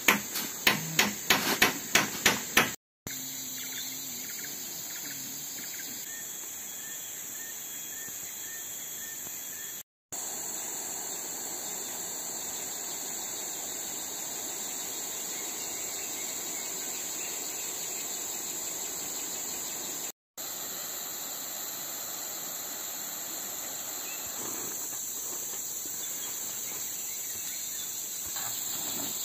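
Steady shrill chorus of forest insects. It opens with a run of quick sharp knocks, about three a second, that stop about three seconds in.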